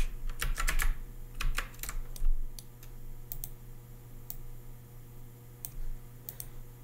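Computer keyboard keys tapping: a quick run of keystrokes in the first two seconds or so, then occasional single taps.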